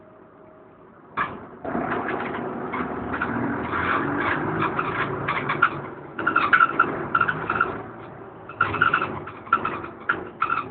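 DAF DB250LF double-decker bus pulling away: its engine noise rises suddenly about a second in and climbs in pitch as it accelerates, heard from inside the passenger saloon. From about six seconds in, short repeated squeaks come through over the running noise.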